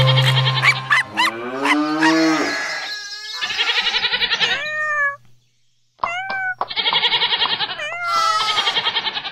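Cartoon farm-animal calls, a cow mooing among them, with children's song music in the first second or so and a short silent gap about five seconds in.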